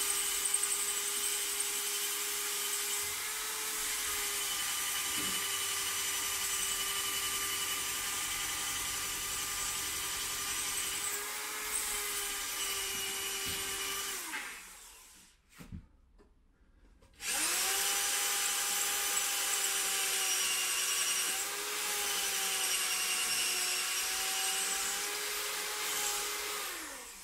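Electric power drill running under load while drilling a hole into the balcony wall, a steady motor whine whose pitch wavers slightly. It goes in two long runs: the first stops about halfway through, and after a pause of a couple of seconds the drill starts again.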